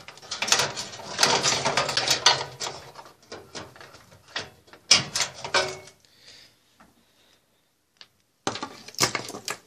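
Clattering and clicking of a gutted microwave oven's sheet-metal chassis and parts being handled as a wire is pulled out, in quick irregular knocks. The noise stops for about two seconds after the middle, then a short run of clicks comes near the end.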